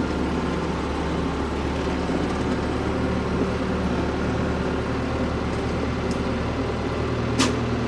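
Ford P-42 excavator's engine running at a steady pitch while the machine is driven along, with a short click about seven seconds in.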